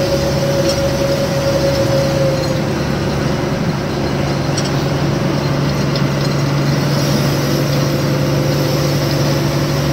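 Lorry engine and road noise while driving, a steady drone with a constant low hum.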